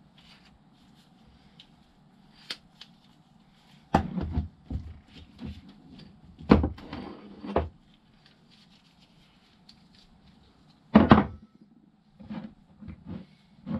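Irregular knocks and clatters of parts and tools being handled and set down on a workbench while a motorcycle rear suspension is dismantled. The loudest clusters come about four, six and a half, seven and a half and eleven seconds in.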